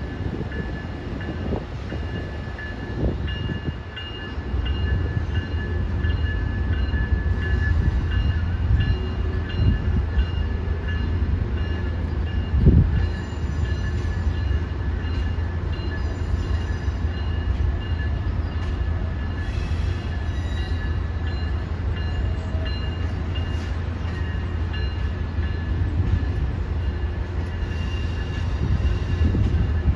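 Amtrak passenger trains rolling slowly through the station: a steady low rumble of wheels and running gear with a thin high whine over it. A single knock comes about thirteen seconds in.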